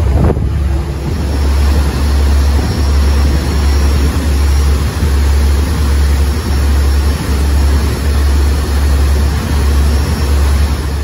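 Steady low drone of a boat's engine under way, with the constant rush of the churning wake water.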